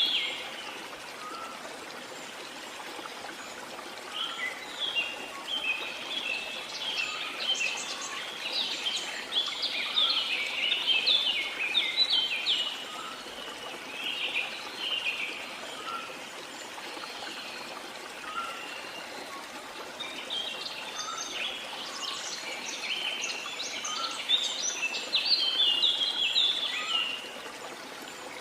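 Rainforest ambience: birds singing in dense, rapid high chirping phrases, in two long spells with a quieter gap between them. Underneath runs a steady wash of running water, with faint soft calls repeating every second or two.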